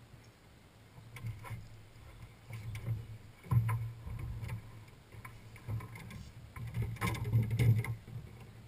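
Irregular knocks and thumps on a small fishing boat's deck as a landing net and rod are handled while a fish is unhooked, with a sharp thump about three and a half seconds in and a cluster of knocks near the end.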